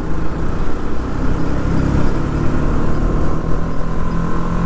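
Motorcycle engine running while riding, under heavy low rumble from wind on the microphone. The engine note rises slowly in the second half.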